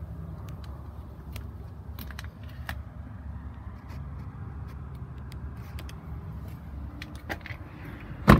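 Steady low rumble with scattered small clicks and rattles, then a pickup truck's rear door shut with one loud thump near the end.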